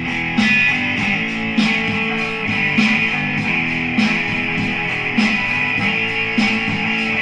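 Background music with strummed guitar over a steady beat.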